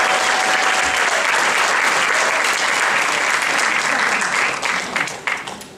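Audience applauding loudly, dying away into a few last scattered claps near the end.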